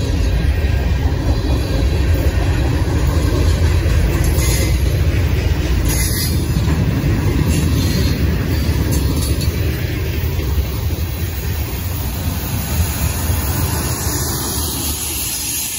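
Freight train cars rolling past close by: a steady heavy rumble of steel wheels on the rails, with a few brief high wheel squeals. Near the end a mid-train CSX distributed power locomotive comes by and the rumble eases off.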